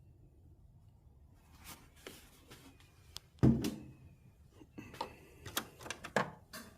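Clicks and knocks of oil-check gear being handled under the hood: the bottle, cap and dipstick. The loudest is a single thump about three and a half seconds in, followed by a quick run of knocks near the end.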